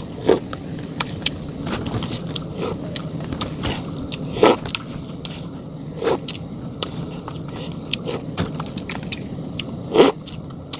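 Eating sounds: a spoon scraping and knocking against a cup of Mie Gelas instant noodles with cilok, with chewing, over a steady background hiss. The knocks come irregularly, the loudest about ten seconds in.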